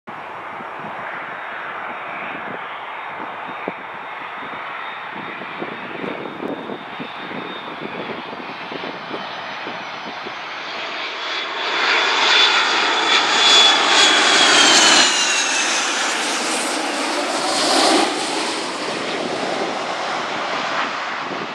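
McDonnell Douglas MD-83 airliner on final approach, the steady noise of its rear-mounted JT8D turbofan engines. It grows louder as the jet passes close just past halfway, with a high whine that drops in pitch as it goes by, then eases off.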